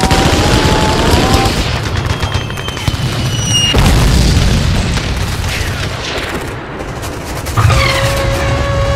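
Dense rapid crackling bangs with a deep boom about four seconds in. Near the end a trumpet starts a long held note.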